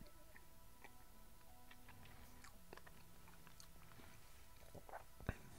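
Near silence with faint scattered mouth clicks and lip smacks from whisky being worked around the mouth while tasting, and one sharper click about five seconds in.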